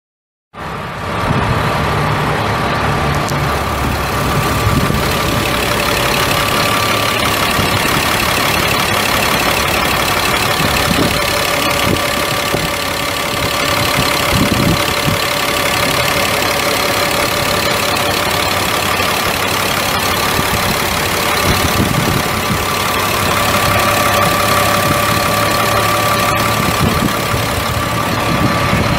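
Caterpillar 3126 inline-six turbo diesel in a Freightliner FL70 truck idling steadily, with a thin steady whine over the engine sound.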